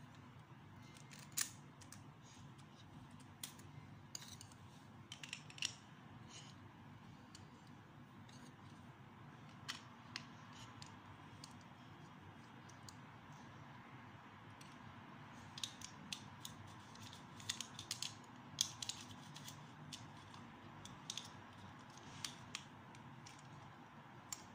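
Plastic Lego bricks clicking and tapping as they are handled, pressed together and set down on a hard tabletop: scattered sharp clicks over a faint steady hiss, coming more often in the second half.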